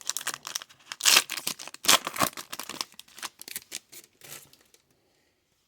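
Trading cards and their foil pack being handled: a run of quick, crisp rustles and scrapes as cards are slid and flipped, loudest about one and two seconds in, then dying away.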